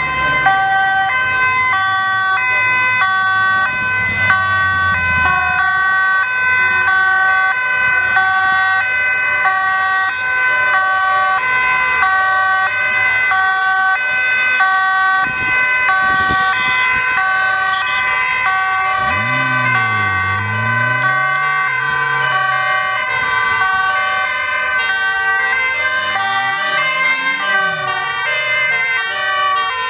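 Several two-tone emergency sirens of Dutch police motorcycles and fire engines wailing at once, each alternating between a high and a low note and out of step with the others. A vehicle engine note dips and rises underneath about two-thirds of the way through.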